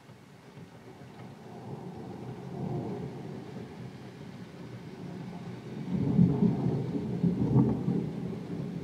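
Rolling thunder that builds from about a second in, swells near three seconds and is loudest about six seconds in before trailing off, over steady heavy rain.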